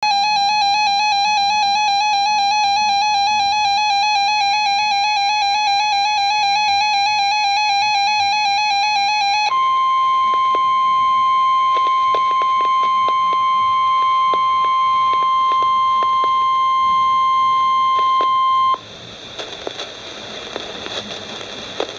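NOAA Weather Radio alert through a receiver's speaker, announcing a severe thunderstorm warning. A warbling electronic alarm sounds for about nine seconds, then switches to the steady 1050 Hz warning alarm tone for about nine seconds. The tone cuts off suddenly to crackly radio static.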